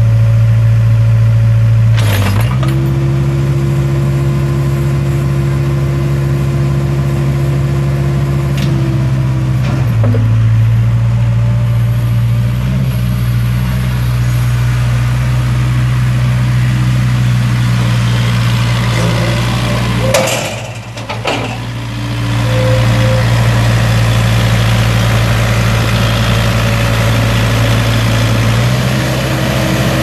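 Case 580 Super K backhoe loader's four-cylinder turbo diesel running steadily as the machine is driven, its note shifting slightly a couple of times. Near two-thirds of the way through there is a sharp click and the sound briefly drops, then comes back to the same steady running.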